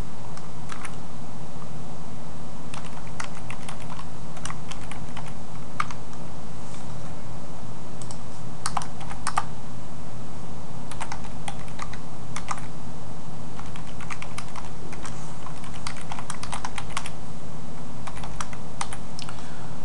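Computer keyboard typing in irregular bursts of keystrokes, over a steady low hum.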